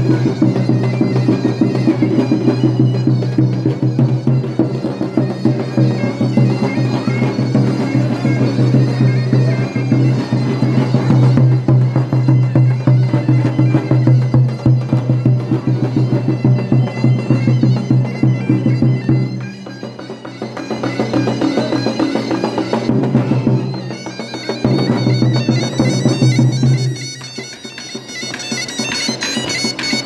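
Davul bass drum and zurna shawm playing horon dance music, with a steady low drone under the melody; the music thins briefly about two-thirds of the way through and again near the end.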